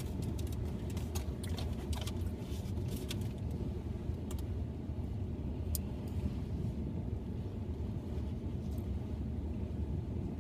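Steady low rumble of a car's idling engine heard inside the cabin, with a scatter of light clicks and taps in the first few seconds.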